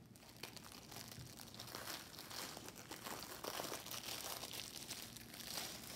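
Clear plastic packaging crinkling and rustling as hands handle it and slide it off paper-wrapped rolled canvases, with many small crackles, a little louder from about a second in.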